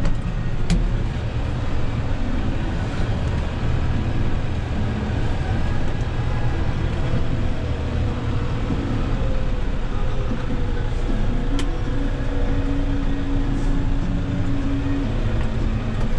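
CASE Luxxum 120 tractor's four-cylinder diesel engine running steadily, heard from inside the cab. A steady whine over it drops in pitch near the end, and there are two sharp clicks, one under a second in and one about two-thirds through.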